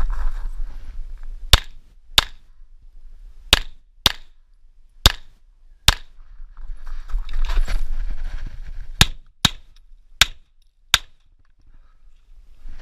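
About ten shots from a Tanfoglio Stock II 9x19 pistol, fired mostly in quick pairs with pauses between the pairs. Between the fourth and fifth pairs there is a stretch of rustling noise.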